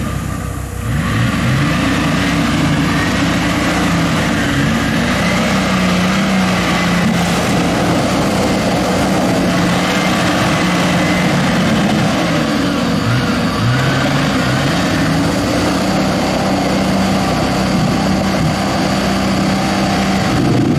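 Toyota Land Cruiser HDJ80's straight-six diesel engine working hard off-road, revving up and down again and again, its pitch rising and falling.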